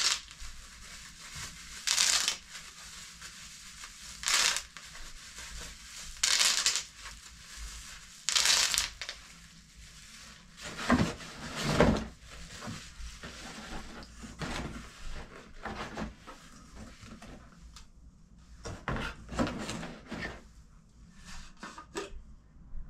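Plastic bubble wrap rustling and crinkling in about four short bursts as it is pulled and unwrapped, followed about halfway through by a few heavier handling noises and then lighter rustles.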